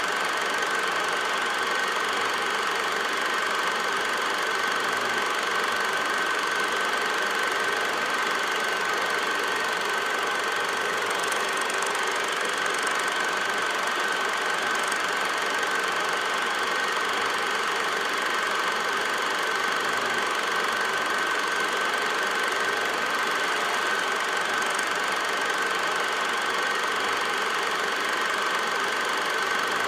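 8mm film projector running: a steady mechanical whir and clatter with a steady high whine through it.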